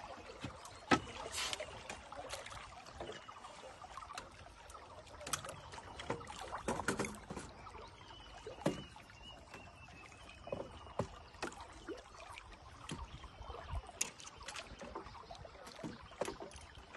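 Scattered, irregular knocks and bumps on a small fishing boat while an angler handles a rod with a hooked fish on.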